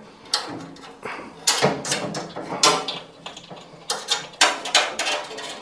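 Irregular metallic clicks, knocks and rattles as the suspension springs at the top of a washing machine drum are worked at their hooks. The springs are stubborn and are not coming out.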